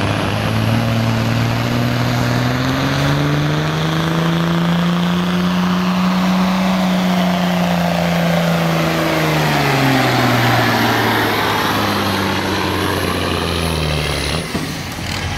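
Stock diesel semi truck pulling a weight-transfer sled at full throttle. Its engine pitch climbs for the first several seconds, then sags steadily as the load builds and the pull slows, with a thin high whistle over the engine. The engine drops off near the end.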